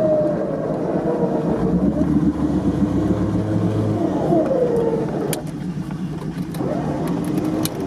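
An American-built 4x4's engine revving up and down under heavy load as it drives forward out of deep mud while being winched. Two sharp knocks come in the second half.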